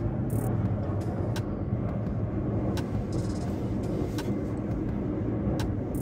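Steady low rumble and air noise inside a moving cable car gondola cabin, with a faint tick about every second and a half.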